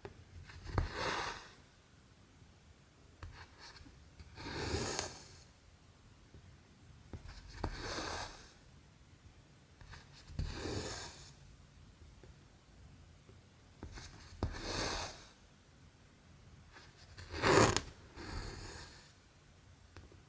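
Cotton embroidery thread being pulled through cross-stitch fabric: a short rasping swish every three to four seconds, six or seven times.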